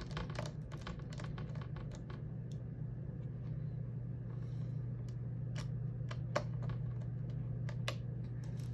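Small scattered clicks and taps of a screwdriver working the small screws that hold a laptop's LCD panel to its lid, a few close together at the start and then spaced out, over a steady low hum.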